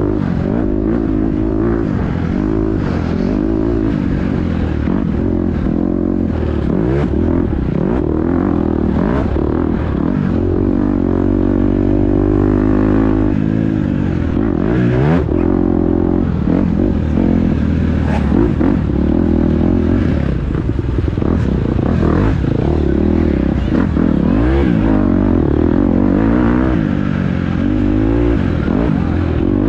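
Dirt bike engine running hard, revving up and down over and over, its pitch rising and falling as the throttle is worked.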